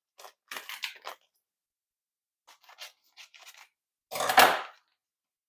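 Scissors snipping open a plastic sachet of agar-agar powder: a quick run of short snips, then a few fainter snips. About four seconds in comes one louder noisy burst, the loudest sound here, as the scissors are put down on the counter.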